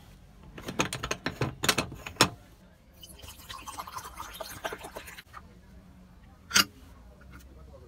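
Aluminium Bialetti moka pot being handled: several light metal clinks as it is taken apart, then water pouring into its base for about two seconds. One sharp knock comes near the end.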